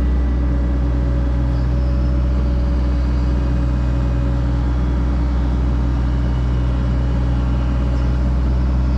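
Excavator's diesel engine running at a steady, unchanging speed, a constant low drone.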